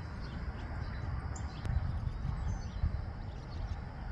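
Outdoor ambience: wind buffeting the microphone in an uneven low rumble, with a few faint bird chirps.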